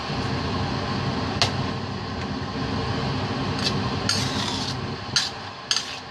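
Cooking spoon stirring a thick cream sauce in a stainless steel pan, knocking and scraping against the metal several times, mostly in the second half. Under it runs a steady low hum.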